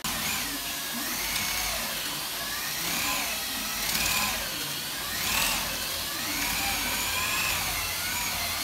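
Electric drill with a paddle mixer stirring putty in a bucket. Its motor whine wavers up and down in pitch as the speed and load change.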